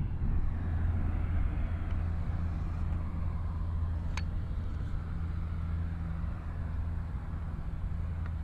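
A steady low motor hum, with one sharp click about four seconds in.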